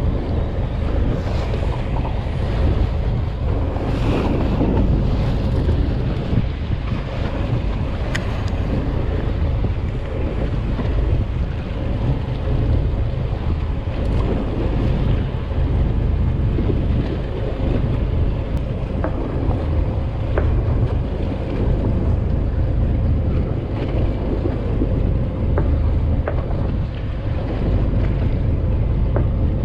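Steady wind buffeting the microphone aboard a charter fishing boat at sea, over a low rumble from the boat and the water, with a few faint clicks.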